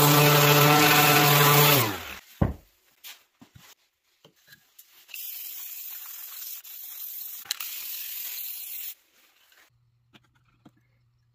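Electric random orbital sander running on a wooden coaster holder, then switched off about two seconds in and spinning down with falling pitch, followed by a single knock. Later a steady hiss lasts about four seconds, with a short break partway through.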